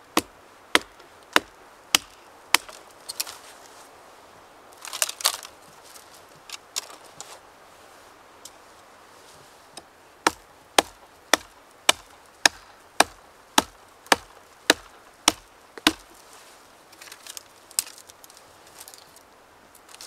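Hand axe chopping into a branch of a fallen dead tree: sharp, evenly spaced blows, nearly two a second, in two runs, five at the start and about a dozen from about ten seconds in. A brief crackling rustle of twigs comes between the runs.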